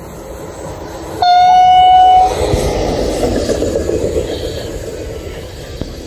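A train horn sounds one steady blast about a second long, starting a little over a second in. The rumble of a running train follows and slowly fades away.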